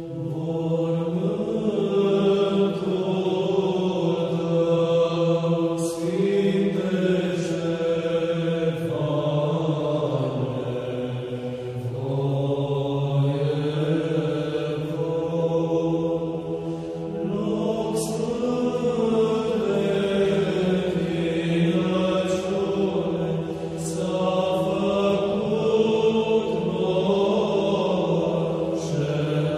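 Orthodox chant: voices singing slow, long-held phrases over a steady low drone.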